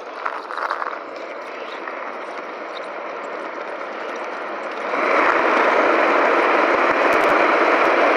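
Skateboard wheels rolling on asphalt downhill, a steady rough rumble that grows louder as the board picks up speed, then gets sharply louder about five seconds in.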